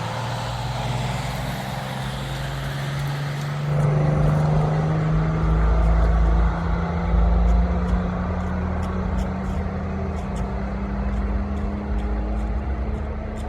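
Vehicle engine running under way, its pitch climbing slowly and steadily as it pulls. A deep rumble swells about four seconds in.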